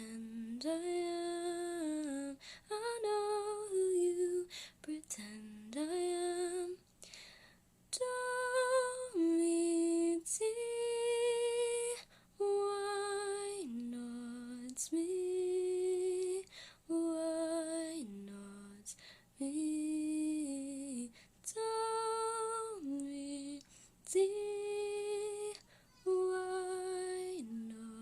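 A woman singing alone with no accompaniment, without clear words, in a string of held notes with short breaks between them.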